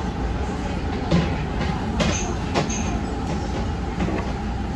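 Restaurant background noise: a steady low rumble with a few light clicks of tableware, about two and two and a half seconds in.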